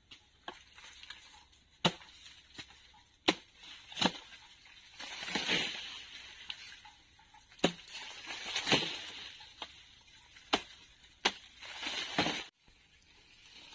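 Blade chopping sugar cane: sharp strikes at irregular intervals, with longer rustling swishes between them.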